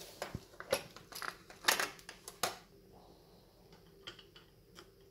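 Small plastic parts of a drum magazine being handled and set down on a wooden workbench: a string of light clicks and knocks over the first two and a half seconds, then a few faint ticks.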